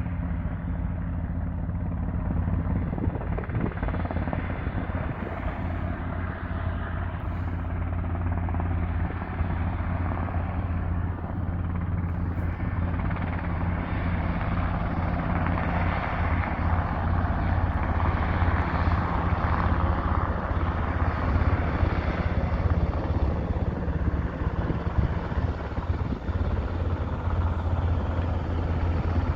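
Steady aircraft noise: a constant low drone with a rushing sound over it that swells in the middle.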